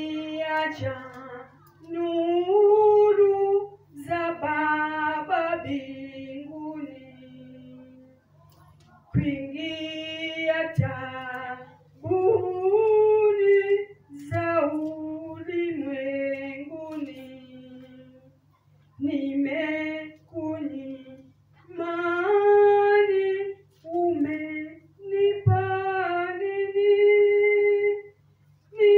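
A woman singing solo into a handheld microphone with no instruments, in phrases of long held notes separated by short breaths. A steady low hum runs underneath.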